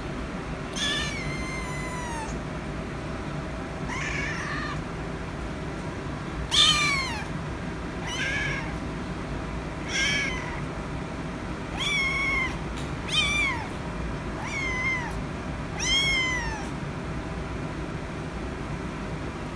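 Young kitten meowing again and again: about nine high, short meows, the first drawn out to about a second and a half and the loudest about six and a half seconds in.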